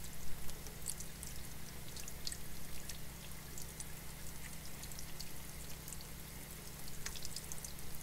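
Faint, irregular crackling and rustling of damp sphagnum moss being pulled out of orchid roots by hand, over a steady low hum.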